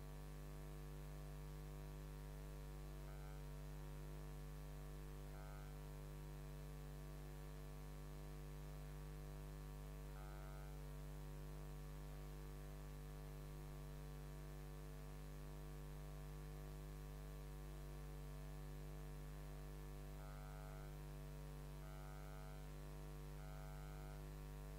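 Faint, steady electrical mains hum with a stack of overtones. Near the end come a few short, faint scratches of chalk writing on a blackboard.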